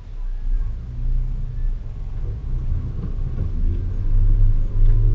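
Off-road 4x4's engine running at low revs as it crawls along a rough dirt trail, heard from inside the cab as a steady low rumble that grows louder near the end.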